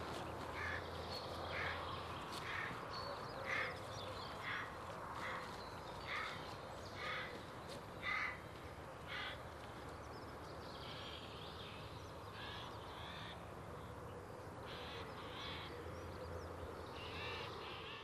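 A crow cawing, about ten caws roughly a second apart, then shorter, higher bird calls in the second half, over a faint steady low hum of outdoor ambience.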